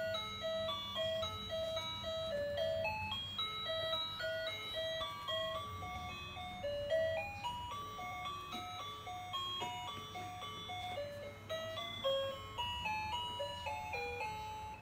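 Music playing back: a simple, jingle-like tune of short, clear single notes stepping up and down over a low steady hum. It stops abruptly at the very end.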